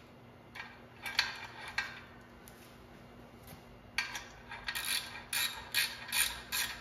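Hand ratchet wrench clicking: a few short clicks about a second in, then a faster run of ratcheting strokes over the second half.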